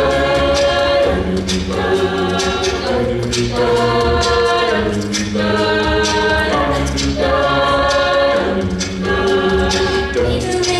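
Girls' a cappella group singing in harmony, the voices holding chords that shift every second or two, with a lead singer on a handheld microphone.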